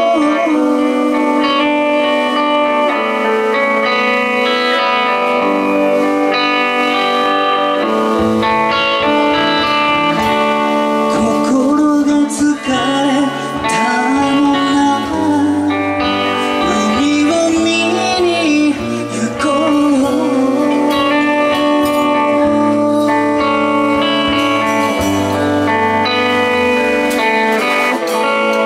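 Live band playing an instrumental passage of a song, guitars to the fore, with bass notes coming in about eight seconds in.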